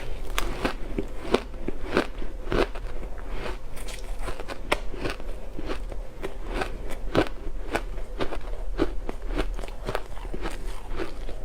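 A person biting and chewing ice: an irregular run of sharp, crisp crunches and cracks, a few a second.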